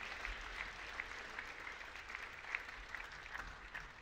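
Audience applauding, a dense patter of many hands clapping that begins to thin out near the end.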